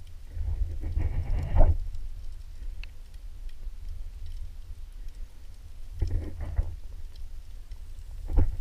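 Muffled sea water sloshing around a camera held underwater: a steady low rumble, with louder sloshing surges about a second in, around six seconds, and again near the end as the camera nears the surface.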